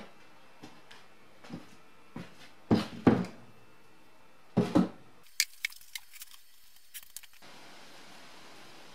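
Cast-iron brake caliper parts handled and set down on the floor of a blasting cabinet: scattered knocks, with two loud pairs of clunks about three and five seconds in, then a run of sharper clicks. A steady hiss follows near the end.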